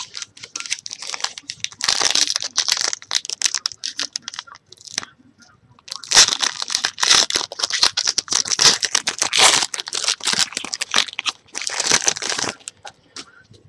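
A foil trading-card pack being torn open and its wrapper crinkled in the hands: two long stretches of crackling rustle with a short lull about five seconds in, stopping shortly before the end.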